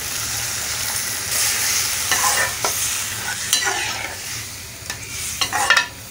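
Metal spoon stirring spiced potatoes in a pan of hot, sizzling liquid, with a steady sizzle throughout. From about two seconds in, the spoon scrapes and knocks against the metal pan.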